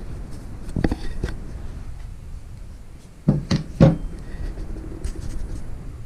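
Handling knocks and rubbing as the cordless multitool is moved about on a wooden workbench: two light knocks about a second in, then three louder knocks in quick succession a little past three seconds in.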